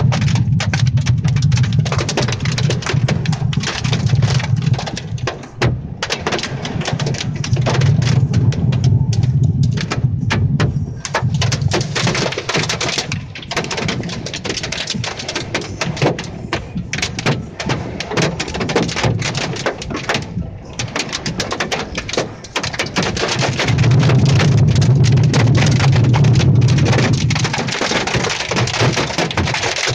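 Hail and heavy rain pelting a car's roof and windshield, heard from inside the cabin as a dense, continuous clatter of impacts. A low rumble swells and fades a few times underneath.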